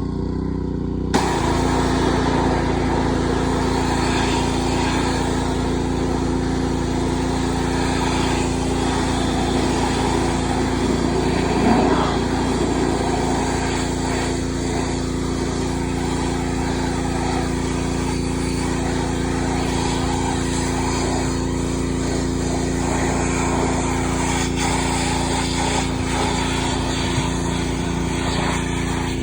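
Pressure washer running steadily, its motor holding an even pitch under the hiss of the water jet spraying a cow trough. The spray starts about a second in.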